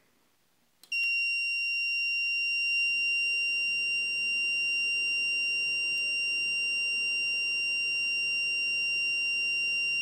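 AMD FirePro V7900 graphics card sounding one loud, continuous, high-pitched beep. It starts about a second in and cuts off at the very end, over a faint low hum from the running computer. The card beeps because its 6-pin PCIe auxiliary power cable is not connected.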